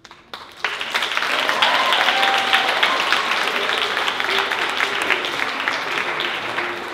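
Audience applauding, starting suddenly about half a second in, with a few voices calling out over the clapping; it begins to die down near the end.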